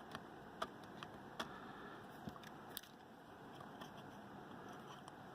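Faint, scattered clicks and taps of small microphone parts being handled and fitted back into the AT2020's barrel, about five sharp ones in the first three seconds and fainter ones after, over a low hiss.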